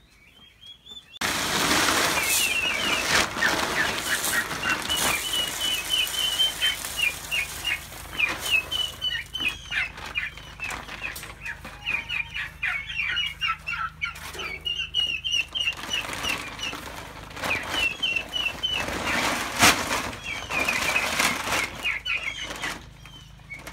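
Chickens clucking and squawking in long runs of short high calls, starting about a second in, with loud noisy bursts among them.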